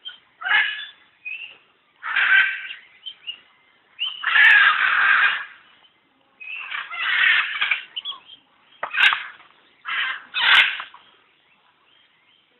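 An animal calling over and over: about seven calls, some brief and some over a second long, separated by short pauses.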